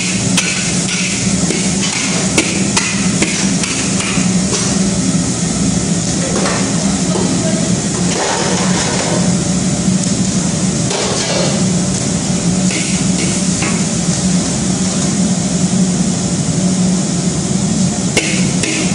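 Metal cooking utensils clanking and scraping repeatedly, as in stir-frying in a wok, over a steady low hum.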